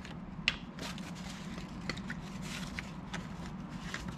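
Plastic bottle of cleaning alcohol being opened and handled: a sharp click about half a second in, then scattered light clicks and taps and a brief soft hiss near the middle, over a low steady hum.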